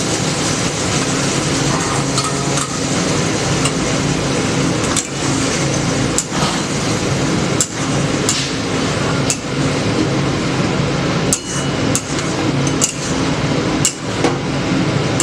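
A metal cooking utensil knocking against a pan at irregular intervals, roughly once a second, over a steady loud hiss with a low hum.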